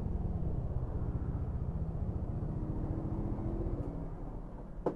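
Yamaha NMAX 155 scooter's single-cylinder four-stroke engine running at a low idle as the scooter rolls to a stop, fading near the end as the ignition key is turned off. A sharp click comes just before the end.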